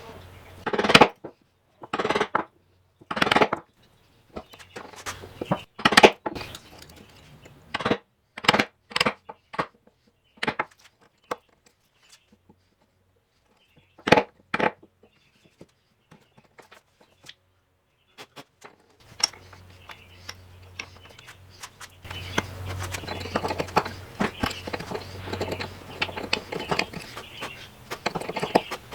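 Sharp knocks and clinks of hand tools against a wooden workpiece and bench, one every second or so, then a pause, and from about two-thirds in a steady scraping or rubbing on the wood.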